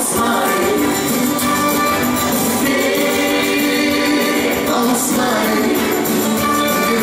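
A live band playing a song: singing over guitars.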